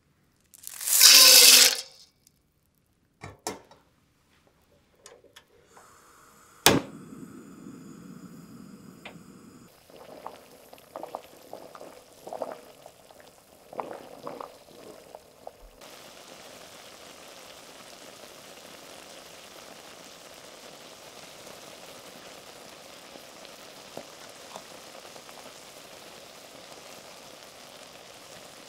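A loud, short pour into a metal saucepan about a second in, then a few knocks against the pan. After that, azuki beans boiling in water in the saucepan give a steady bubbling hiss.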